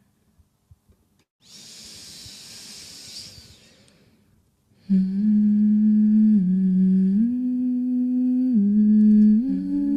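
A long breathy exhale about a second and a half in, then from about five seconds a low hummed melody of held notes that step up and down in pitch.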